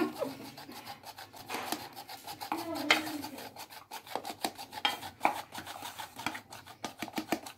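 Flour being scooped and scraped out of a bowl with a plastic measuring cup and tipped into a squeeze-handle flour sifter, followed by the sifter's handle working in a quick run of rasping clicks as flour falls through its mesh.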